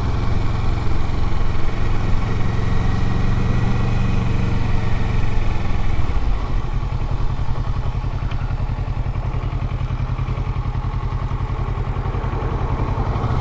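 Motorcycle engine running while riding, its note dropping about halfway through to a lower, evenly pulsing beat.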